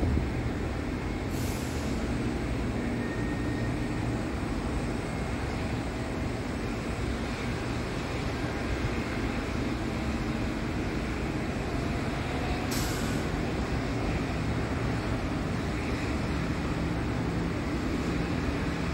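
Steady low engine rumble of airport traffic, with two short hisses, one about a second in and one about two-thirds of the way through.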